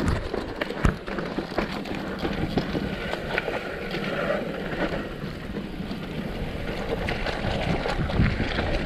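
Mountain bike rolling down a rough trail: steady tyre noise on dirt and gravel with many small clicks and rattles from the bike, and one sharp knock about a second in.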